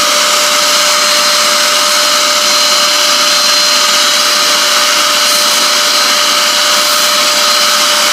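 Bissell SpotClean Pro portable carpet cleaner running steadily: its suction motor gives a constant rush of air with a steady whine, as its hand tool works over fabric.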